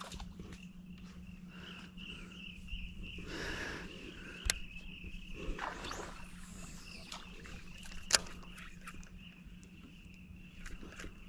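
Quiet outdoor ambience on a small fishing boat: a steady high buzz and a low steady hum, with a soft swell of noise and a couple of sharp clicks, the louder one about eight seconds in.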